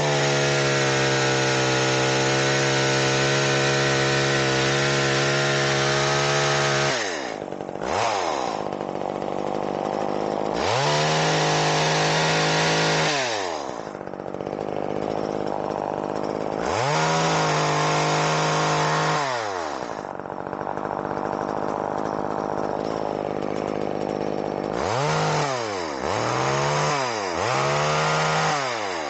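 Poulan Micro XXV two-stroke chainsaw running without cutting. It is held at full throttle for about seven seconds, drops to idle, then is revved up and let back down twice more, with a run of quick short blips near the end. The saw is smoking as it burns off oil that a faulty oil pump check valve had been pumping into the cylinder.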